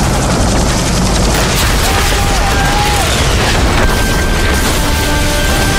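Loud, dense movie battle sound effects of explosions and gunfire mixed with a dramatic score. A sustained high note comes in around two seconds in, and another steady tone joins from about four seconds.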